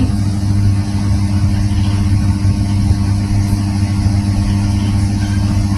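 A steady low droning hum of running machinery, even in loudness throughout.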